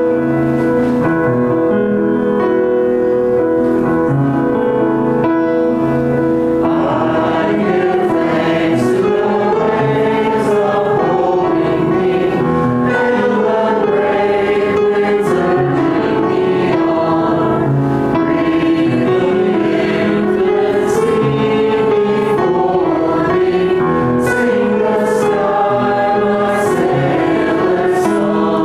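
A church choir singing a hymn over keyboard accompaniment. The first several seconds are held keyboard chords, and the voices come in about six seconds in.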